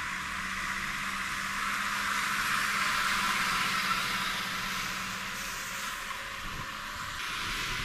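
A Mercedes minibus driving past, its engine hum and tyre noise swelling over the first few seconds and then fading away, over a steady hiss.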